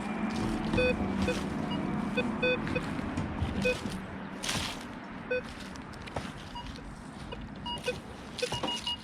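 Metal detector (Minelab Vanquish 440) giving short beeps of several different pitches, low and high, as its coil is swept over buried targets. A brief rustle sounds about halfway through.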